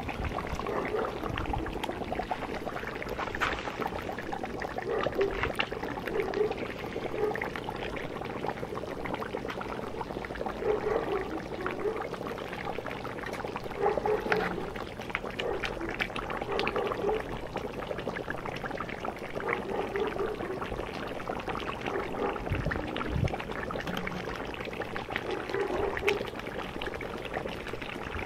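Meat gravy bubbling in a cast-iron cauldron boiled by hot stones, with repeated low gurgles every second or two. A metal ladle scoops and pours the gravy, clinking now and then on the pot.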